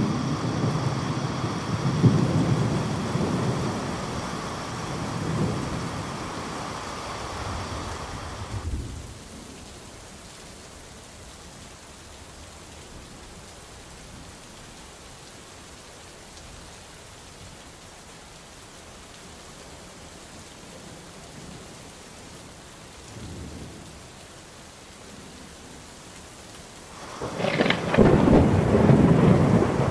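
Thunderstorm ambience: rain falling steadily under rolling thunder. Loud rumbling thunder fades out suddenly about nine seconds in, leaving the rain; a faint rumble comes around two-thirds of the way through, and loud thunder rolls in again near the end.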